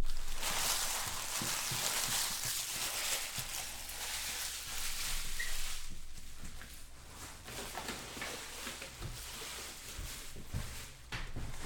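Crumpled foil trading-card pack wrappers crinkling as they are swept up by hand, dense for the first six seconds or so, then thinning to a few light knocks and handling sounds.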